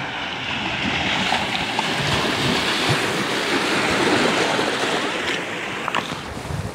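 Small sea waves washing in over a stony shoreline, the foaming surf hissing and swelling, then easing off near the end.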